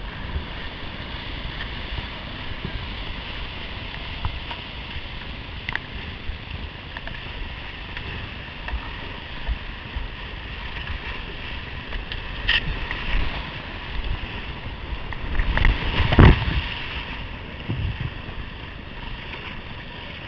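Whitewater rapids rushing and churning around a kayak, heard close up from the boat itself, with paddle splashes and water hitting the microphone. A big splash about sixteen seconds in is the loudest moment.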